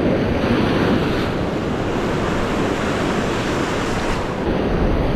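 Surf washing over shore rocks, swelling about a second in and again near four seconds, with wind buffeting the microphone.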